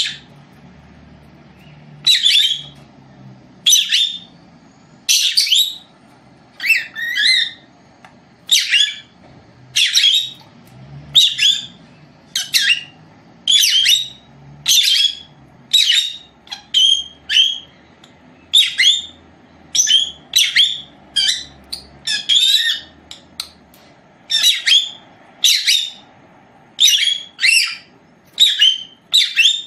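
Lovebird calling over and over: short, high-pitched chirping calls about once a second, now and then two in quick succession.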